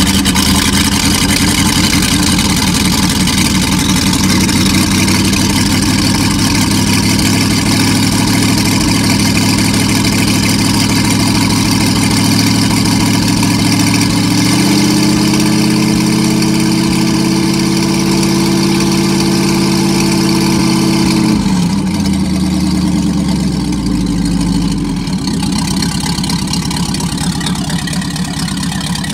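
Rebuilt Packard 356 marine straight-eight engine running steadily, brought up to a higher speed about halfway through and held there for several seconds, then dropping back in steps to idle. It is clearing out the excess oil left in its cylinders from the rebuild.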